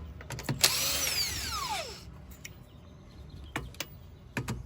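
Power tool run in one short burst, its whine falling in pitch as it spins down, while a wheel is being taken off a car. A few sharp metallic clicks follow near the end.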